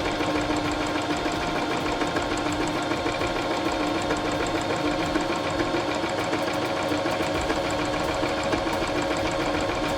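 Pfaff Element 1090s electric sewing machine running steadily at speed, its motor and needle mechanism making a rapid, even mechanical chatter.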